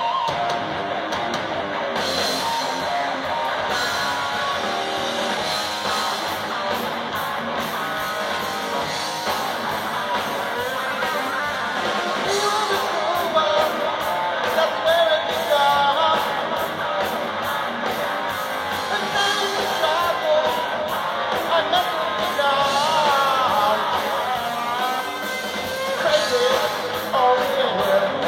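Rock music: a singing voice over guitar and a steady beat.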